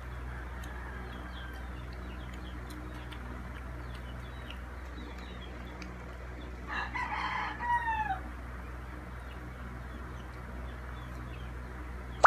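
A rooster crowing once, about seven seconds in: one call of a second and a half whose pitch falls away at the end, over a steady low hum and faint small-bird chirps.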